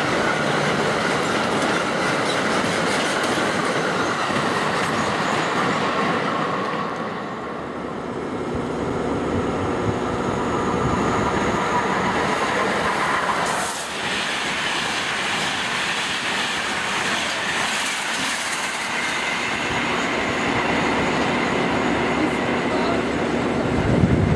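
Empty double-deck car-carrier freight wagons rushing past, with rolling wheel noise and clatter over the rail joints, easing off about seven seconds in. Then a class 350 electric locomotive hauling passenger coaches runs through, wheels rumbling and clacking, with a thin steady squeal in the last few seconds.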